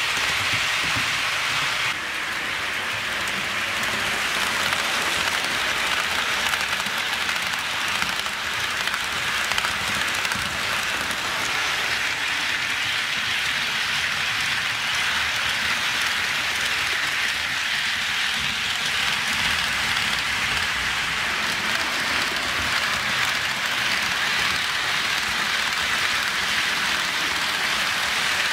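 HO scale model freight trains rolling along the track: a steady hiss of small metal wheels running on the rails, shifting slightly about two seconds in.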